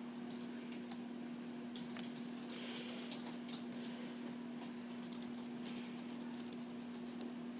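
Keys of a small Bluetooth tablet keyboard case clicking at irregular intervals as a few words are typed and then deleted, over a steady low hum.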